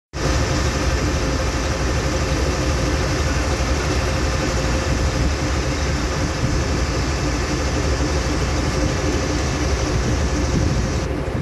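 Boat engine running steadily: a low drone with a constant hum and an even hiss over it. The hiss drops about eleven seconds in.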